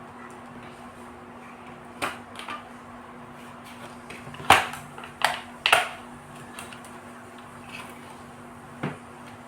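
A few sharp clicks and knocks of small parts and tools being handled during work on an automatic transfer switch. The three loudest come close together between about four and a half and six seconds in, over a steady low hum.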